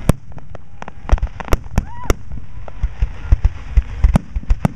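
Aerial firework shells bursting in rapid succession, a dozen or more sharp bangs at several per second, over a continuous low rumble.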